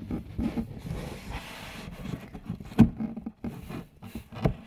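Soft rustling and scattered knocks close to the microphone, with one sharp knock a little past the middle and another near the end.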